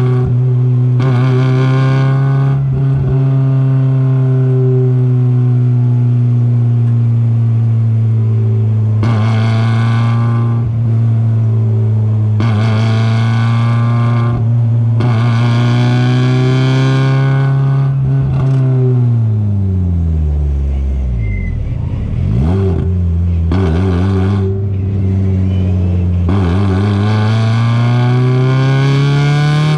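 A Mazda race car's engine heard from on board at high revs under load, holding a high steady pitch with brief dips. About 19 seconds in, the pitch falls steeply as the car slows for a corner, then climbs again as it accelerates out.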